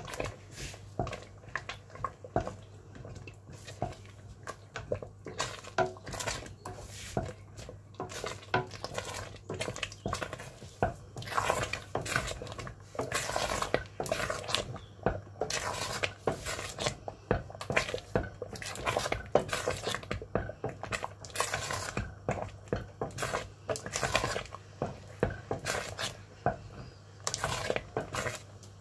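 A wooden spoon stirring thick, sticky xalwa in a large metal pot as it cooks on medium heat, knocking and scraping against the pot's sides and bottom over and over at an uneven pace. A steady low hum runs underneath.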